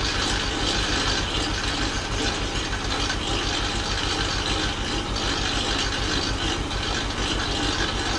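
Tractor engine idling steadily, with a fast, even low throb.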